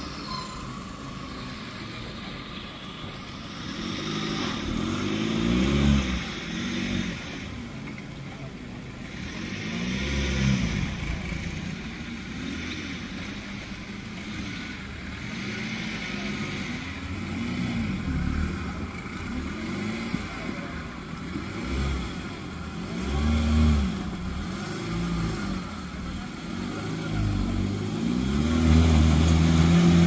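A competition off-road 4x4's engine revs again and again as the vehicle claws up a steep mud bank, each rev rising and falling in pitch. The hardest, loudest revving comes near the end.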